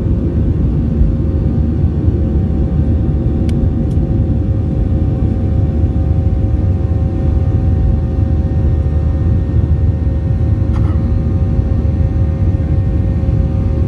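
Boeing 737's turbofan engines at takeoff thrust, heard from the cabin over the wing through the takeoff roll and lift-off: a steady, loud, deep rumble with a steady fan whine on top. A few faint clicks about three and a half and eleven seconds in.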